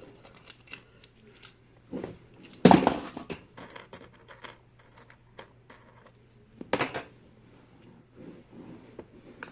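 Small plastic fidget toys clicking and clattering against each other as they are rummaged through and set down, with a few louder clatters about three seconds in and again near seven seconds.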